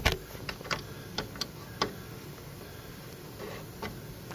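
Irregular light clicks and taps from hands and the phone working around the table saw's blade-raising gears and shaft: about six sharp ones in the first two seconds, then two fainter ones near the end.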